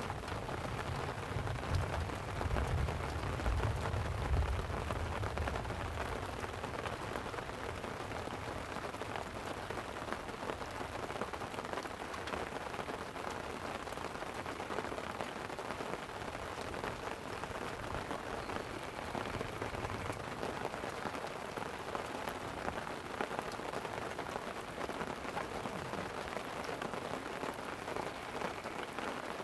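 Light rain pattering steadily on a tent. A low rumble of distant thunder rolls in about a second and a half in and fades a few seconds later.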